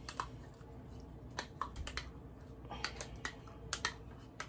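A spoon tapping and scraping against a measuring cup as sauce is spooned out of it into a pot: a run of light, irregular clicks.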